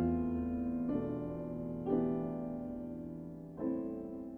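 Slow, soft piano music: chords struck about once a second, each left to ring and fade, with a longer pause before the last one.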